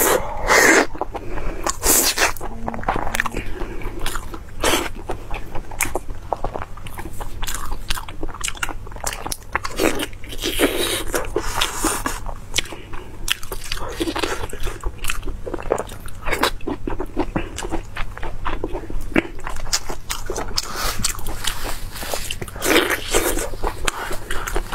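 A person biting and chewing food close to a clip-on microphone, a steady stream of small crunches and chewing clicks, with louder bouts of crunching about ten seconds in and again near the end.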